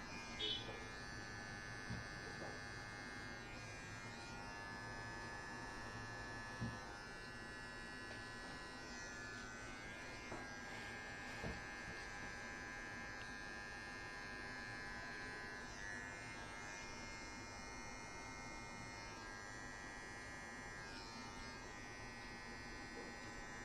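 Electric hair clippers running with a steady buzz as they cut hair, with a few faint clicks.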